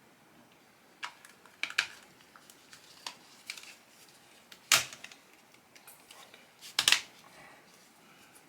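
Hard plastic phone case clicking and snapping as it is pressed and fitted onto a smartphone: scattered sharp clicks, with the loudest snap a little past the middle and a quick double snap about two-thirds through.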